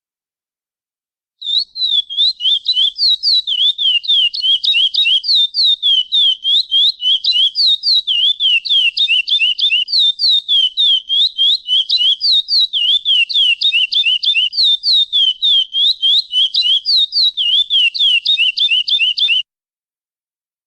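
A chestnut-bellied seed finch (curió) giving a long, rapid run of short, repeated down-slurred chirps, several a second, starting about a second and a half in and stopping suddenly about a second before the end.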